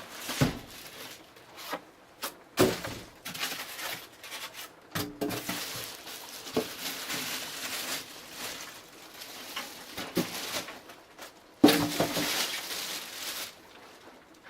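Styrofoam packing pieces being pulled off a boxed PC case, with the plastic bag over the case being handled: irregular rustling, scraping and squeaking with scattered knocks. A sharp knock near the end is the loudest sound.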